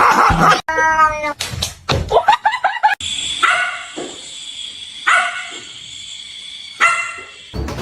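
Dog whining and yipping: one high whine, then a quick run of short yips, and after a break three separate short yelps spaced well apart.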